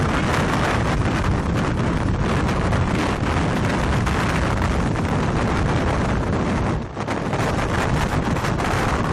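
Strong wind buffeting the microphone: a dense, steady rush of noise, with a brief lull about seven seconds in.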